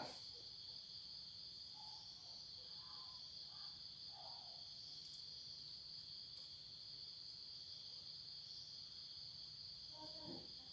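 Crickets chirring steadily and faintly, a continuous high-pitched trill. A faint short sound comes near the end.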